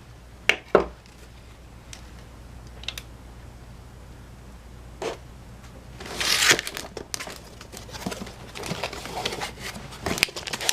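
Packaging being handled during an unboxing: a few sharp clicks and knocks, then crinkling and rustling of paper and plastic wrapping from about six seconds in.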